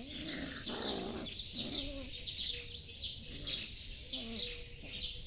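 Many small birds chirping busily and without pause, with brief lower cries mixed in and a short rustling scuffle about a second in.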